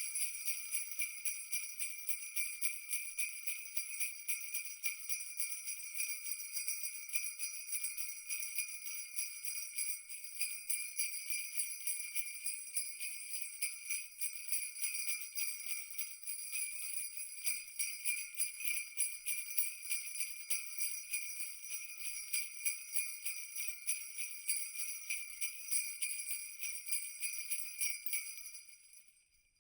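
Jingle bells shaken continuously in a rapid, steady jingle, fading out near the end.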